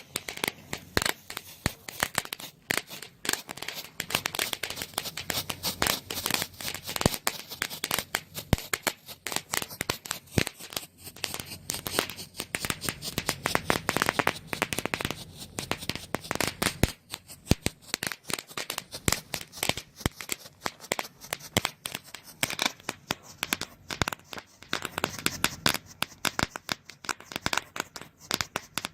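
Top Gun Fireworks Silver Strobe 90 Seconds strobe firework going off: a continuous, irregular stream of many sharp pops and crackles each second.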